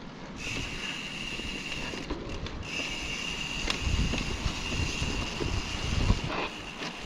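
Mountain bike rolling over rough dirt trail with a jolting rumble, and a steady high-pitched squeal held through most of it that breaks off briefly about two seconds in.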